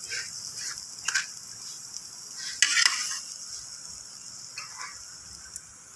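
A spoon scraping food onto a glass plate: three short scrapes over a steady hiss.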